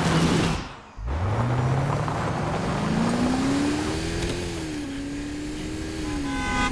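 A car rushes past with a whoosh, cut off sharply about a second in. Then a car engine revs hard, its pitch climbing steadily for about three seconds under acceleration, and holds high with two brief dips.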